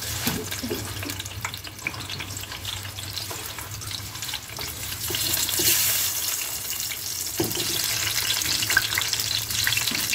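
Tomato halves, green chile and onion sizzling and crackling in hot oil in a stainless-steel pan as the pieces are dropped in; the sizzle grows louder about five seconds in.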